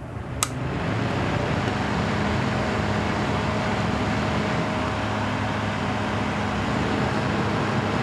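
Small 40-watt electric circulator fan switched on with a click just under half a second in, spinning up over the next half second, then running steadily with a rush of air and a low hum while powered from an inverter.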